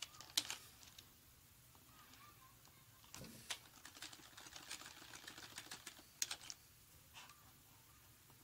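Faint typing on a computer keyboard: a quick run of key clicks lasting about three seconds in the middle, with a few separate clicks before and after.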